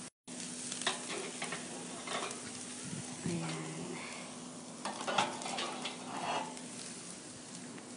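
Meat skewers sizzling over a charcoal grill, with the metal skewers clinking and scraping on the grate as they are turned by hand.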